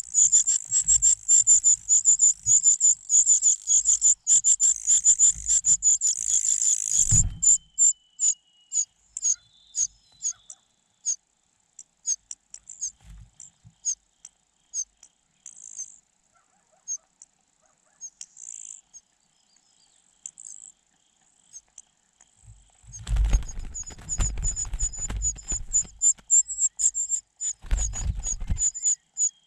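Nestling birds calling in rapid, very high chirps: a dense run for the first seven seconds or so, then scattered single chirps, then dense again from about two-thirds of the way in, with low rustling thumps underneath.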